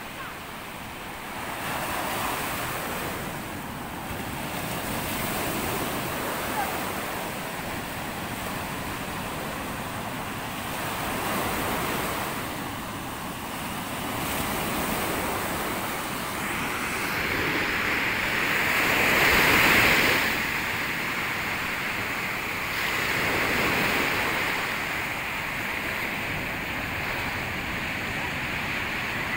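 Surf breaking and washing up a sandy beach, the rush swelling and fading wave by wave, loudest about two-thirds of the way through.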